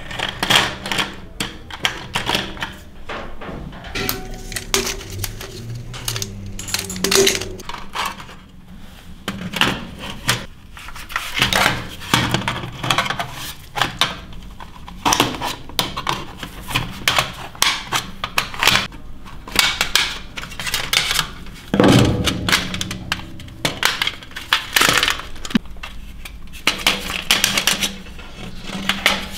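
Metal toy airplane being taken apart by hand: irregular clicks, taps and clinks of a thin screwdriver and metal parts against each other and the wooden bench, with one heavier knock about three-quarters of the way through.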